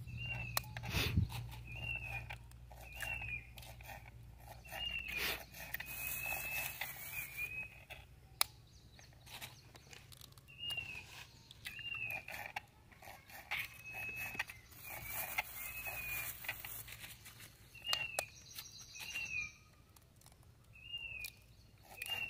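A bird calling over and over with short, arched chirps, coming in runs of several notes with gaps between. A few sharp taps and cracks stand out, fitting eggshells being cracked against a steel bowl.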